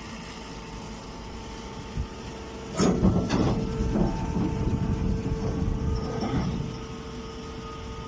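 Straw baler machine running with a steady motor hum. About three seconds in, a louder rattling rumble starts and lasts a few seconds, then eases back to the hum.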